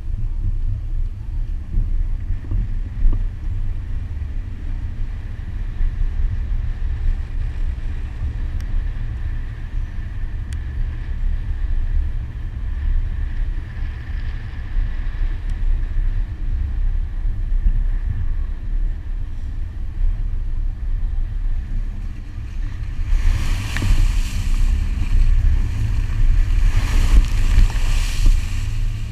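A 2001 Subaru Forester driving over sand and dirt, heard from a camera mounted outside on the driver's window: a steady low rumble of the car with wind buffeting the microphone. Near the end a louder, harsher rushing lasts for several seconds.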